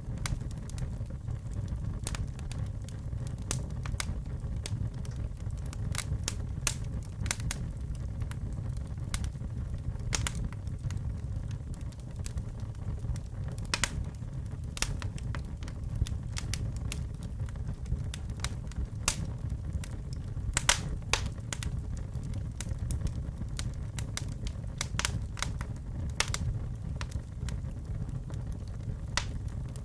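Fire burning in a fireplace: a steady low rush of flame with frequent sharp crackles and pops, some coming in quick clusters, the loudest pop about two-thirds of the way through.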